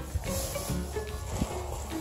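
Background music: a melody of short held notes over a steady low bass line.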